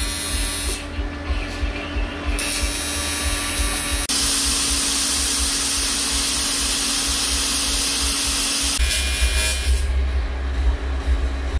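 TIG welding arc buzzing and hissing steadily as the rotten power trim pump housing is welded up. The sound changes abruptly several times as short clips cut in and out.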